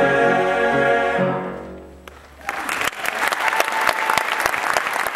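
Choir holding its final chord, which fades away over about a second. After a short pause the audience starts applauding steadily.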